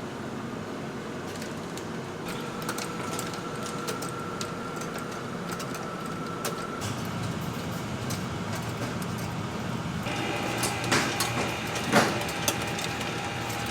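Kitchen machinery running with a steady hum and a faint steady whine, with a few sharp clicks and clacks near the end.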